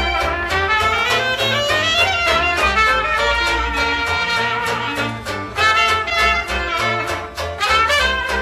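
Traditional New Orleans jazz played live: trumpet and clarinet playing melody lines together over strummed banjo chords and plucked double bass.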